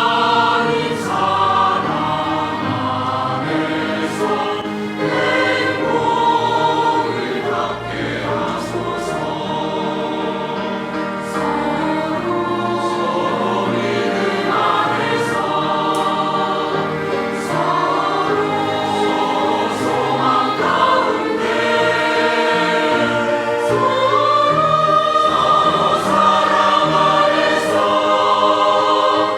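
Church choir singing a hymn, steady and full throughout.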